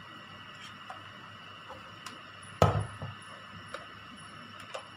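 One sharp clack about two and a half seconds in, with a few faint clicks around it: hard plastic nebulizer parts being handled and set down.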